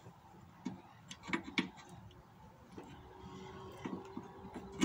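A few light clicks and knocks from hand work at the top strut mount of a hatchback tailgate, as a new gas strut is fitted, with the sharpest click near the end. A faint steady hum starts about three seconds in.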